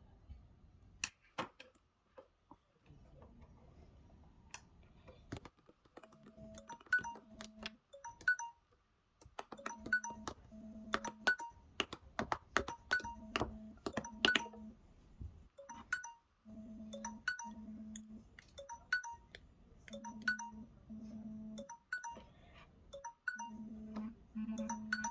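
Samsung Galaxy phones' timer and alarm tones going off together: short electronic beeps at several different pitches, repeating in overlapping rhythms from about six seconds in. Sharp clicks run through the whole stretch.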